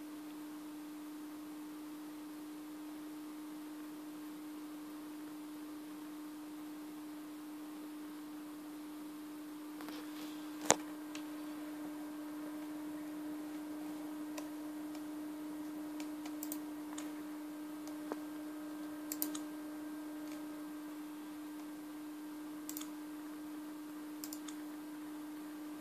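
A steady hum, joined about ten seconds in by clicks of a netbook's pointer buttons: one loud click, then scattered lighter ones.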